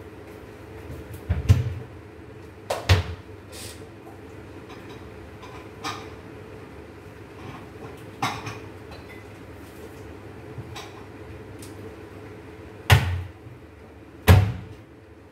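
A handful of sharp knocks and clatters of metal kitchen utensils and cookware, about five, spread out, with the two loudest near the end, over a steady low hum.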